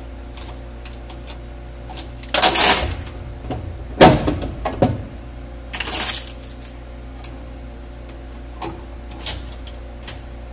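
Hobart dishwasher running with a steady hum. Three loud, sudden bursts of noise and metallic clatter come about two, four and six seconds in.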